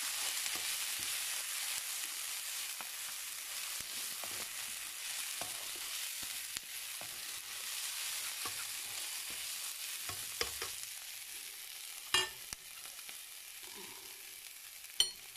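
Diced onions sizzling in oil in a frying pan, stirred and pushed around with a slotted spatula, giving light scrapes and ticks. The sizzle slowly gets quieter, and there are a couple of sharper taps of the spatula near the end.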